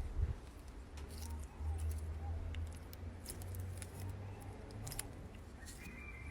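Slime being worked, giving scattered crisp little clicks and crackles over a steady low hum.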